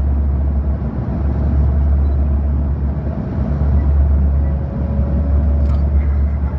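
Cabin drone of a Dash 8 turboprop heard from a window seat beside the engine: a steady, loud low propeller hum with a fainter steady tone above it.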